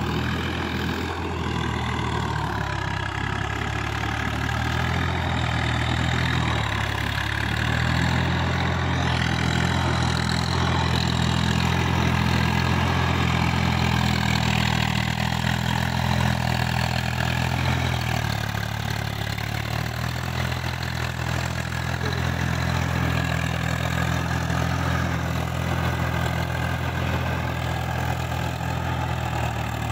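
Diesel tractor engine running steadily under load while it drives a rotary tiller through flooded, muddy paddy ground, with a broad hiss over the engine hum. The engine note firms up about eight seconds in and sags briefly near the middle.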